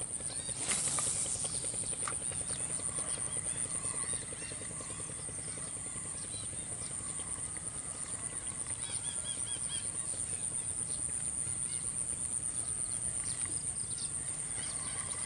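A steady, evenly pulsing high-pitched insect drone, with a short rush of noise about a second in and a few small bird chirps near the middle.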